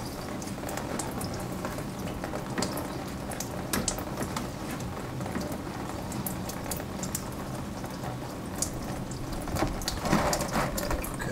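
Engine coolant dripping and trickling from the radiator drain into a plastic tub as the drain cock is being opened: scattered small ticks over a steady hiss.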